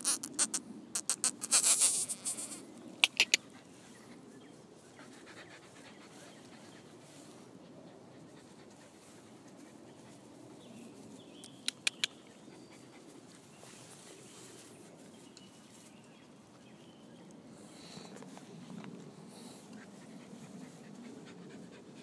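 Rottweiler puppies panting softly, with a quick run of loud sharp clicks in the first three seconds and a few more about twelve seconds in.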